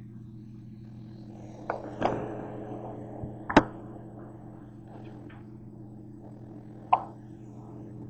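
A few sharp knocks and clatters of things being handled and set down on a kitchen counter, over a steady low hum.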